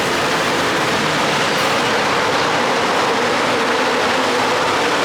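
New Holland combine harvester running close by: a loud, steady, even machine noise with a faint hum underneath.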